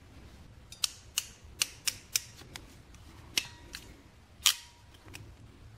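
Ratcheting crimping tool crimping a ring terminal onto a wire: a run of sharp clicks from about a second in, the loudest one near the end.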